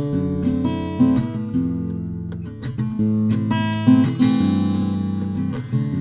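Background music of an acoustic guitar strumming chords, with the chord changing about every second.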